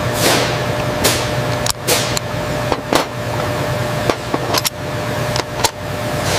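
Steady factory machinery hum with a faint constant tone, broken by a series of about eight sharp clicks and clacks of small metal parts, and a couple of falling whooshes.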